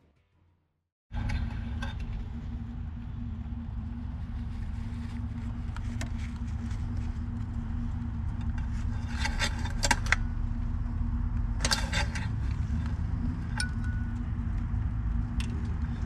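A van engine running steadily under the open bonnet, with a few light metallic clinks and rattles as the oil dipstick is handled and drawn out of its tube, about nine and twelve seconds in and again near the end.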